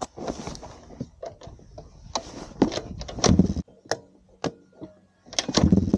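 Clicks and knocks of a pit bike being kick-started, with a brief low burst partway through; near the end the engine fires and catches, running on its new carburettor and CDI.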